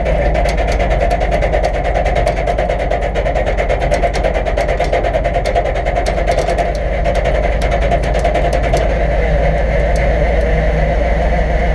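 Truck-mounted winch running steadily under load, reeling in its cable as it drags a stuck pickup out of a mud hole. It makes an even whine with a low hum and rapid ticking.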